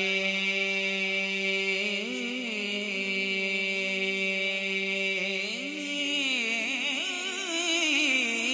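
A man's voice singing a long, wordless melismatic passage in naat recitation, the pitch wavering and bending over a steady low drone, and growing louder near the end.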